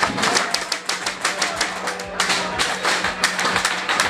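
Airsoft guns firing in rapid strings of sharp clicking shots, with the pellets smacking targets in the arena.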